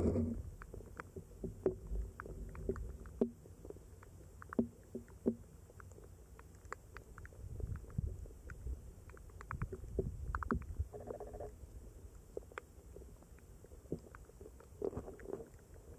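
Underwater sound in a shallow river: a low, muffled rumble of moving water with scattered sharp clicks and ticks, and a short run of rapid buzzy clicks about ten seconds in.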